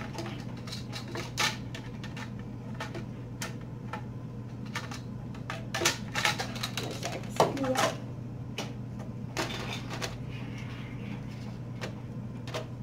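Hard plastic parts of a two-tier lazy Susan turntable clicking and knocking as they are handled and pushed together, a string of short irregular clicks over a steady low hum.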